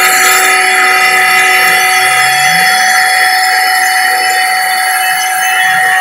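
CNC router spindle milling an aluminium plate with an end mill: a loud, steady whine at several pitches over the noise of the cut.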